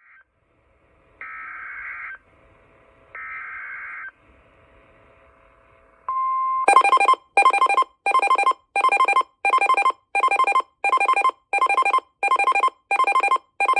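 Emergency alert tones. Two roughly one-second bursts of warbling data tones, typical of an EAS SAME header, are followed about six seconds in by a short steady tone, then a loud beeping alert tone pulsing a little under twice a second.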